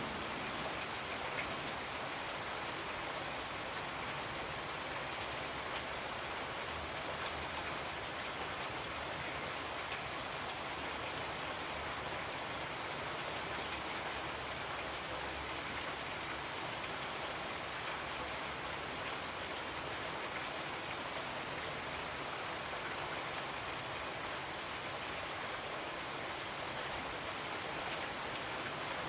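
Steady rain falling, an even hiss of rain with scattered individual drops pattering on a surface.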